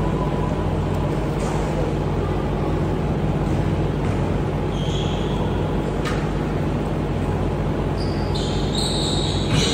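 Steady hum and rushing air of a large fan running. A few short, high sneaker squeaks on the hardwood floor come midway and near the end, with one sharp knock about six seconds in.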